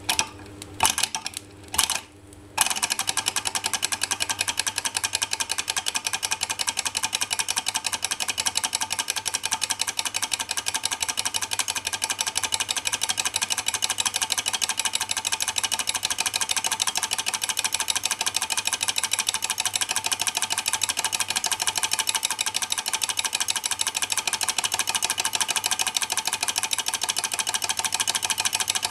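Small Stirling hot-air beam engine started by a flick of its flywheel: a few uneven clicks, then about two and a half seconds in it settles into running with a fast, even mechanical clatter.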